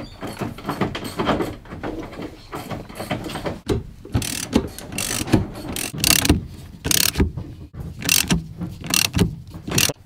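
Socket ratchet clicking in short strokes as the bolts on a Nissan S15's six-speed shifter base are undone, with knocks and rattles of plastic console trim being handled.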